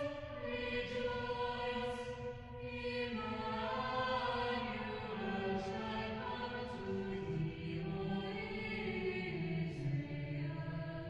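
Background music: a choir singing slow, held notes that move gradually from one pitch to the next.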